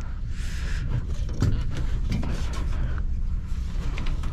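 Thin copper capillary tube of a freezestat being pulled out along a fan-coil's finned coil, giving short scraping and rustling noises over a steady low hum.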